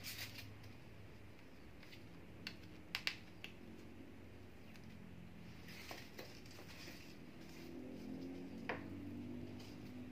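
Scattered faint clicks and light handling noise as a spool of red ribbon is picked up and ribbon is drawn off it, over a faint low hum.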